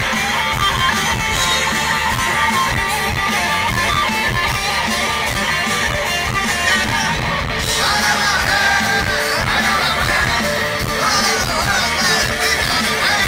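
Loud live rock music from a rock band on guitars, bass and drums, with singing over it in the second half.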